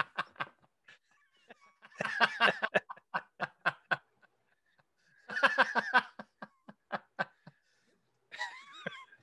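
A person laughing in bouts of quick, rhythmic ha-ha pulses that trail off, breaking out again about two and five seconds in.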